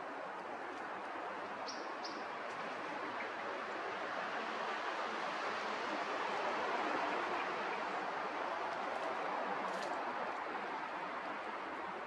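Steady rushing outdoor background noise that swells slightly midway, with two short high bird chirps about two seconds in.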